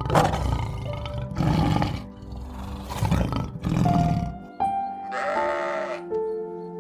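Background music with steady sustained notes over repeated rough animal calls for the first four seconds or so. After a change about four and a half seconds in, a different, shorter animal call comes over the music.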